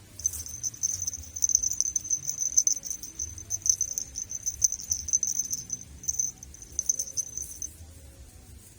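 An insect's high, pulsing trill, like a cricket's, that starts suddenly and stops about a second before the end.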